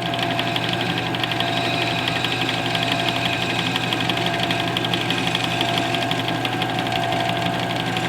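Metal lathe running steadily while turning down aluminium stock, with a constant motor hum and whine.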